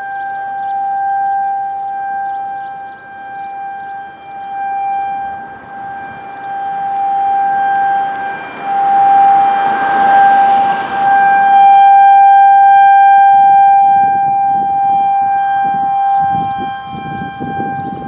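Outdoor tornado warning siren, most likely the town's Federal Signal 2001, sounding a steady alert tone that swells and fades as the siren rotates, loudest around the middle. Faint bird chirps come in near the start and near the end.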